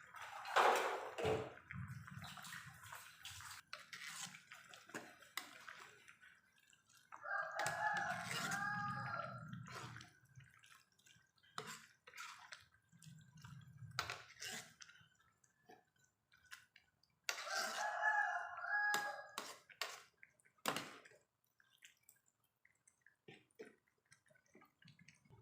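A rooster crowing twice in the background, each crow lasting two to three seconds, about ten seconds apart. Light clinks and knocks of kitchen utensils run throughout.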